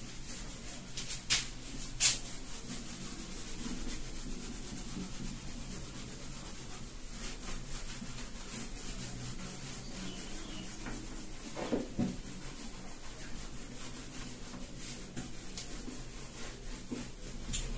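Hand rubbing across a whiteboard, wiping off marker writing, with a couple of sharp taps about one and two seconds in.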